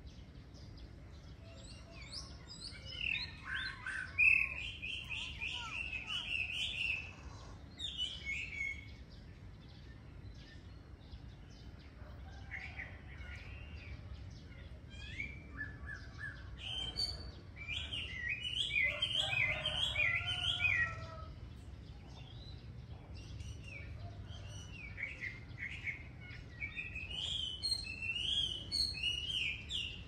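Songbirds singing in bouts of quick, warbling chirps, with short pauses between phrases, over a steady low background rumble.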